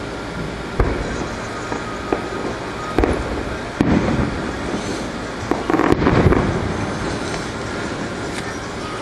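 Aerial fireworks shells bursting: a bang about a second in, two more around three and four seconds, then a run of quick bangs with a rumbling tail around six seconds.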